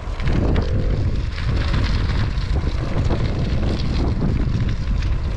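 Wind buffeting the microphone of a handlebar-mounted action camera on a moving bicycle, with the rumble of tyres on an asphalt path beneath. It is a steady, loud noise with no break.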